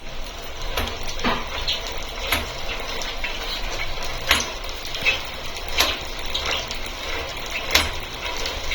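New Shimano 8-speed internal gear hub creaking as it turns: sharp creaks at irregular intervals every one to two seconds over a steady mechanical running noise.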